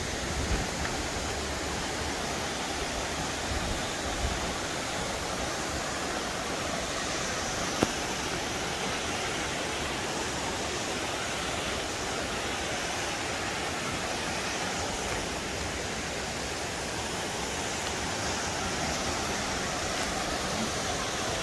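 Waterfall: a steady, even rush of falling water, with a single sharp click about eight seconds in.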